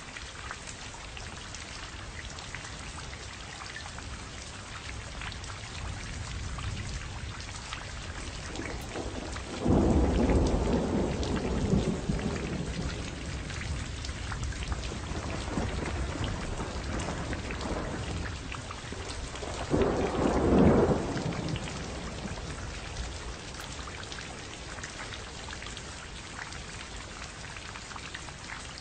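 Steady heavy rain with thunder: a sudden low rumble about a third of the way in that fades slowly, and a second shorter rumble about two-thirds of the way in.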